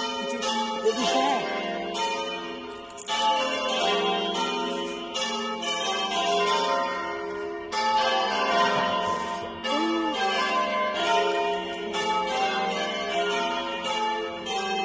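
Church tower bells being change-rung: a quick, uneven run of strikes, each bell ringing on and overlapping the next.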